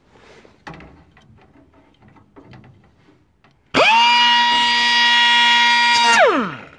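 Pneumatic cut-off tool with a small cutting disc starting up abruptly almost four seconds in, running with a loud steady whine for about two and a half seconds, then winding down with falling pitch. Faint knocks and handling noise come before it.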